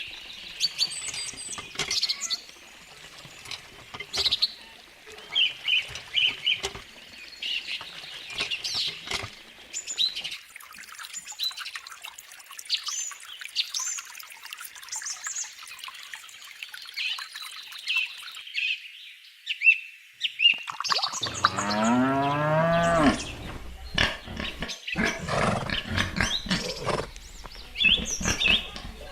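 Small birds chirping throughout, and one long cow moo about two-thirds of the way through.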